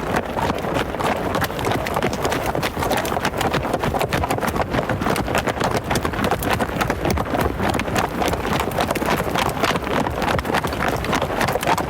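Hooves drumming continuously on the ground: a rapid, dense clatter of hoofbeats, as of several hoofed animals running.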